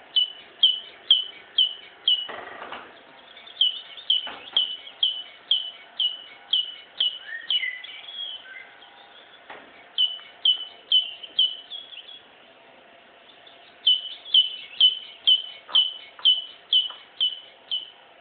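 A bird calling: a short high chirp repeated about twice a second, in three runs broken by short pauses. There are a few faint knocks and a brief rustle about two seconds in.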